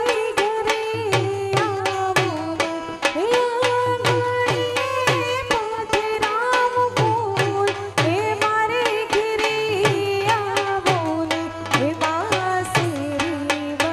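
Live Gujarati folk raas music: a voice sings a gliding melody over a harmonium, with a dhol and hand drum keeping a quick, even beat.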